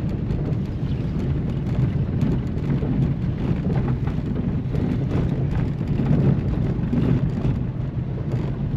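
Vehicle travelling over a rough road: a steady low rumble with frequent short rattles and knocks.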